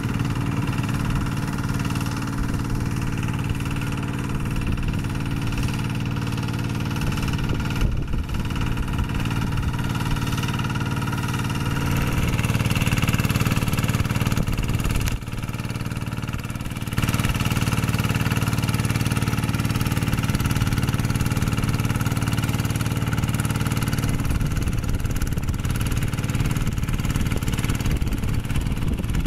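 Kubota RD110Di-2T 11 hp single-cylinder diesel on a two-wheel hand tractor running steadily while it drives a rotary tiller through wet paddy mud. Its loudness steps up and down a few times about halfway through.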